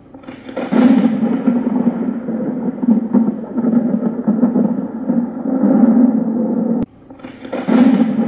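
Loud, continuous rumbling sound effect that swells up about a second in, cuts off abruptly near the end, then swells up again half a second later.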